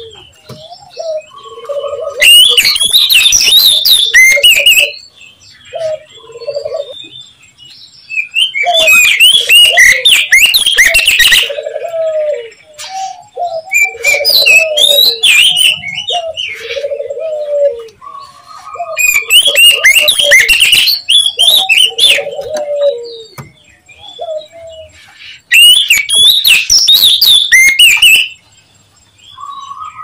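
Oriental magpie-robin (kacer) song played as a lure call: five loud bursts of rapid, varied whistles and harsh chatter, each two to three seconds long, with lower repeated notes in between.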